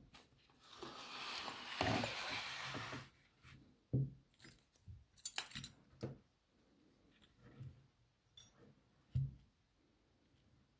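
Small metal tools and a lock cylinder being handled while working at the lock's brass retaining clip: a scraping rustle for about two seconds, then a series of light metallic clicks and taps.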